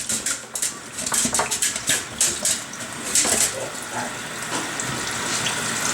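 Tap water running and splashing irregularly as an animal is bathed with shampoo.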